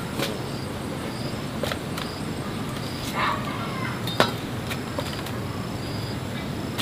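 A few sharp clinks and knocks of hard objects, four of them spread over several seconds with a short scrape in the middle, over a steady low background and faint high chirps repeating.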